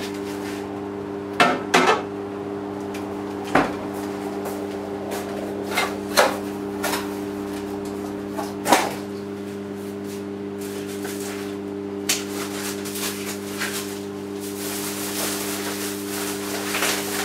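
Kitchen clatter as things are put away: irregular knocks and bumps of objects set down and cupboards and drawers handled. Underneath runs the steady hum of a countertop hot-air fryer that is still cooking.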